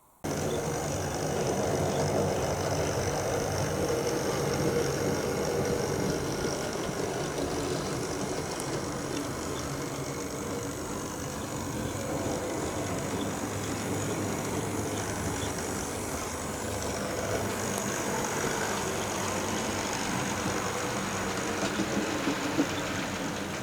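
An engine or motor running steadily, starting abruptly just after a moment of silence.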